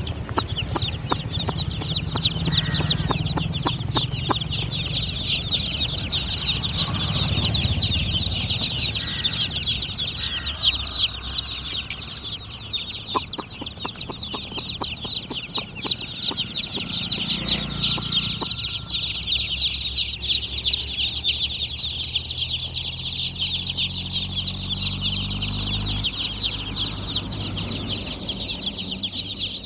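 A group of baby chicks peeping without pause, many high, quick chirps overlapping one another, over a low hum.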